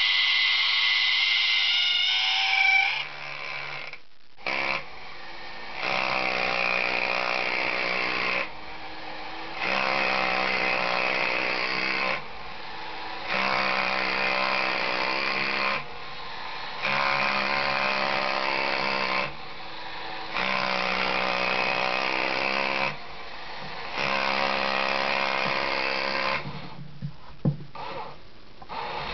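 1950s Marx battery-operated Yeti toy running: its small electric motor and gear train whir in a repeating cycle, about two and a half seconds louder then a second quieter, as the figure goes through its motions. For the first few seconds there is a higher whine that wavers in pitch, and there are two sharp clicks near the end.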